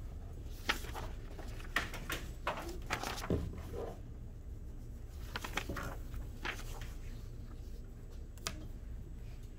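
Scattered light clicks and knocks as a small VEX IQ robot and its parts are handled and set down on the field, with one duller thump about three seconds in, over a steady low room hum.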